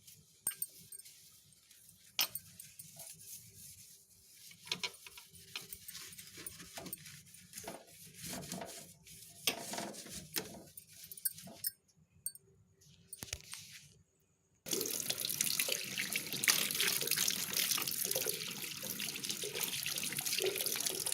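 A fridge shelf being washed with dishwashing gel, with scattered clicks and knocks of handling and scrubbing. About fifteen seconds in, a tap is turned on and water runs steadily into a sink to rinse it.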